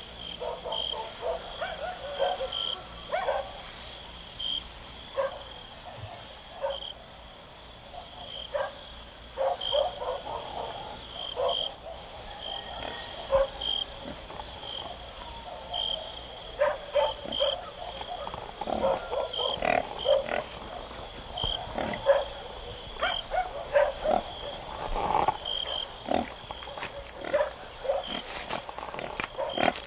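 Pigs grunting and squealing in short, irregular calls that come thicker in the second half, with a steady high chirp repeating roughly once a second behind them.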